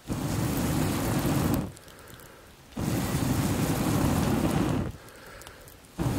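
Someone blowing into a wood campfire through a fire-blowing pipe in three long breaths, each a rushing roar of air and fanned flame that starts and stops abruptly, with short pauses between.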